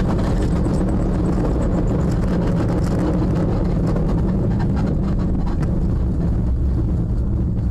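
Loud, steady rumbling and rattling of a car moving on just after a collision, with crackling and clattering throughout.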